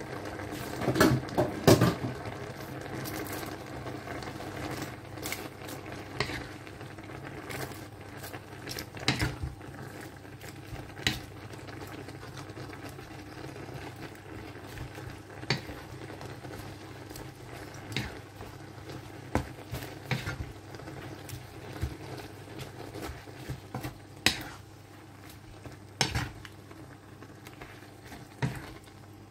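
Wooden spatula stirring a simmering curry in a frying pan, knocking against the pan every few seconds over a steady bubbling, with a cluster of louder knocks about a second in.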